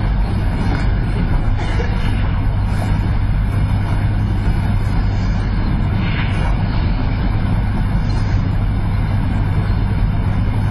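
Steady low hum and rumbling background noise that stays at an even level throughout.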